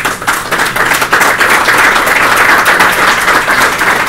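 Audience applauding: dense clapping that starts suddenly and stays loud and steady.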